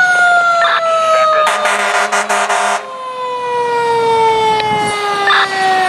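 Fire engine's mechanical siren, a Federal Signal, winding down in one long slowly falling wail. About a second and a half in, the truck's air horn blasts for a little over a second.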